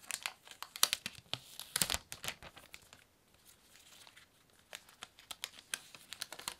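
Thin protective wrapping being peeled and crinkled off an Apple power adapter: rapid crackling and tearing, busiest in the first two seconds, easing off in the middle and picking up again near the end.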